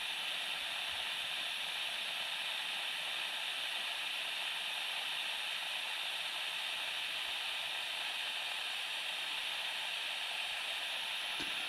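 Butane soldering iron hissing steadily as its gas burns, heating the wire for soldering.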